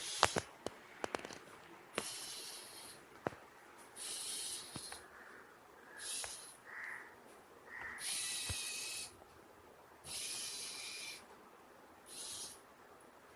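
Automatic PCB test and repair machine running its test cycle: about six short bursts of hissing, each lasting half a second to a second, with sharp mechanical clicks, most of them in the first two seconds and a few more scattered later.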